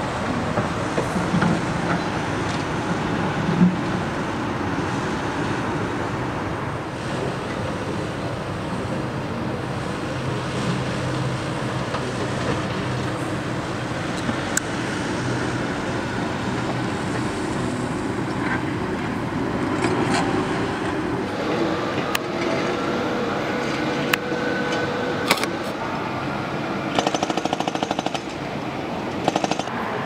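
Construction-site machinery din: diesel plant running steadily, with occasional sharp metallic knocks and a rapid hammering rattle for about two seconds near the end.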